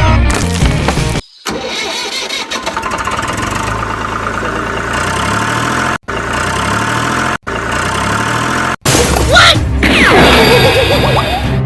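A vehicle engine starting and running, with light music underneath and several sudden cuts in the sound.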